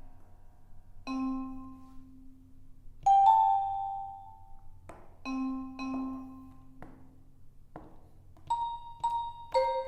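EASYPLAY 1s keyboard playing one of its sound samples: separate struck notes, each ringing out and fading, a second or two apart and then coming quicker near the end.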